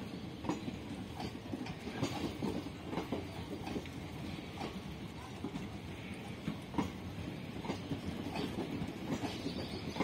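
Passenger coaches of an express train rolling past, a steady rumble with irregular clicking as the wheels cross rail joints and points.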